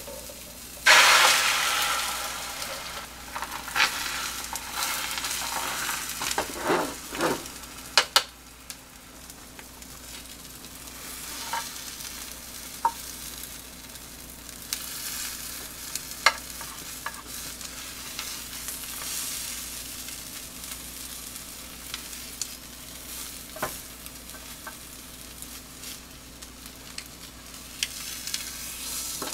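Beaten egg frying in a hot square tamagoyaki pan over a gas flame: a sudden loud sizzle about a second in as fresh egg hits the pan, fading to a steady sizzle. Chopsticks click against the pan now and then.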